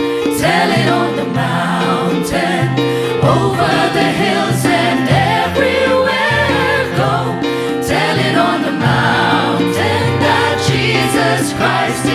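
A choir singing a gospel-style song over steady held bass notes.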